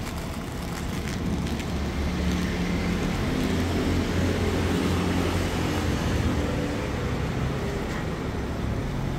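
A motor running with a low, steady hum that swells in the middle and eases off near the end.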